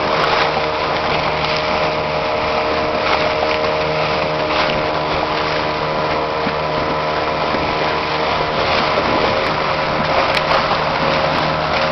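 Small riverboat's motor running steadily at a constant pitch, with an even rush of water and wind noise over it as the boat crosses choppy water.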